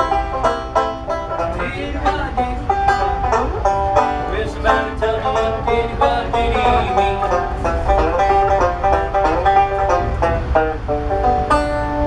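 Banjo played solo: a quick run of picked notes in a bluegrass-style tune, over a steady low rumble from the moving rail car.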